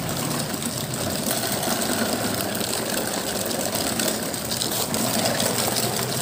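Small motor of a toy excavator or toy truck running steadily as the toy drives along.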